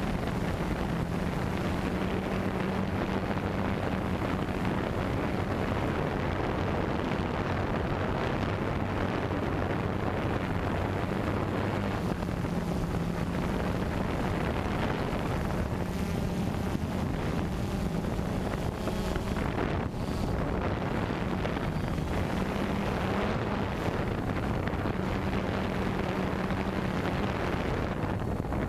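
A small camera drone's electric motors and propellers hum steadily, the hum shifting slightly in pitch and strength as it manoeuvres, with wind rushing over its microphone.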